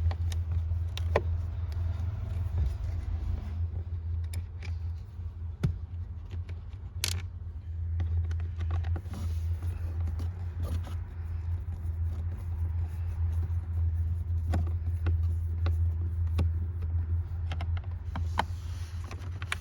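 Scattered small clicks and taps of a Phillips screwdriver backing out the two screws on a plastic cabin air filter cover, over a steady low hum.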